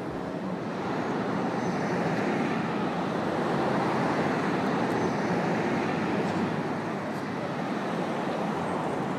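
Steady city street traffic noise: cars running past on the road, engine and tyre noise blending into a constant rush.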